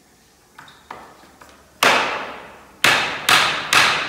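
Hammer striking the top rail of a wooden ladder being assembled: a few light taps, then four hard blows from about two seconds in, coming faster toward the end, each ringing briefly.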